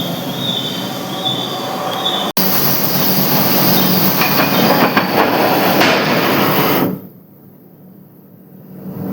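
Forging press machinery running in the workshop: a loud, dense metallic clatter and grind with an intermittent high squeal in the first two seconds. It breaks off for an instant just over two seconds in, and falls much quieter about seven seconds in before building back up near the end.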